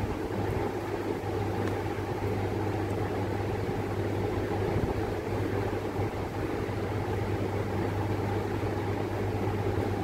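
Steady mechanical hum, like a fan or motor running, with a low drone under an even noise.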